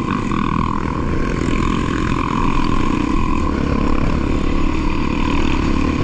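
Motorcycle engine running steadily while the bike climbs slowly uphill.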